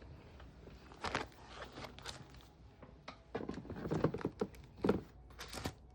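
Light knocks and rustles of sticker packets being handled and shifted about in their storage, a few scattered taps with a small cluster past the middle.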